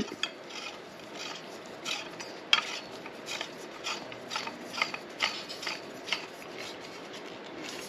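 A pipe union being screwed by hand onto a threaded pipe section. The threads make a dry rubbing sound, with light irregular clicks about twice a second as the fitting is turned.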